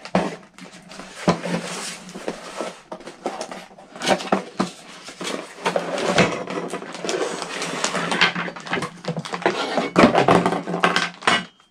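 Packaging from an RC buggy kit being torn open and handled: dense, irregular rustling and crackling with many sharp clicks.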